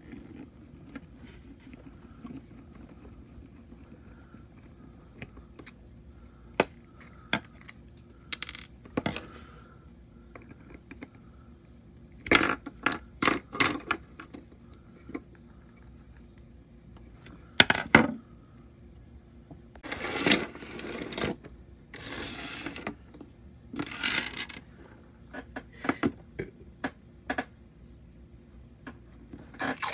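Plastic TrackMaster toy train being taken apart with a screwdriver on a hard tabletop: scattered clicks and scrapes of plastic parts, with small metal pieces clinking. Louder clusters of rattling and scraping come in the second half.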